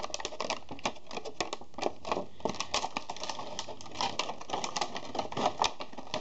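Clear plastic packaging tray crackling and clicking in quick irregular snaps as an action figure is worked free of it by hand.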